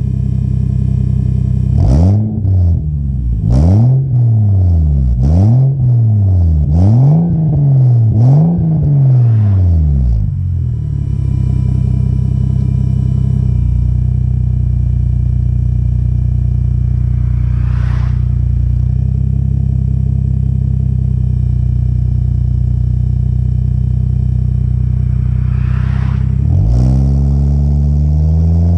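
Toyota Aristo's 2JZ twin-turbo straight-six heard at the tailpipe. It idles, then gives five quick throttle blips in a row between about two and ten seconds in, each rev rising and falling. It settles back to a steady idle, and near the end the revs climb as the car pulls away.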